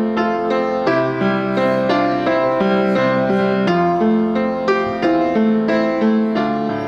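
Piano music: a slow melody of single notes over held chords, each note struck at an even, unhurried pace, with no singing.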